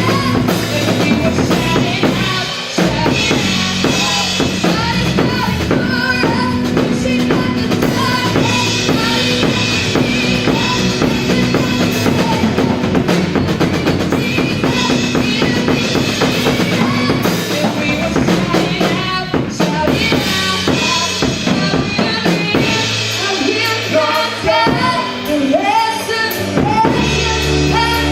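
Live gospel band playing an instrumental passage: a drum kit with kick, snare and rimshots under bass guitar and keyboard. The bass line moves through shifting low notes near the end.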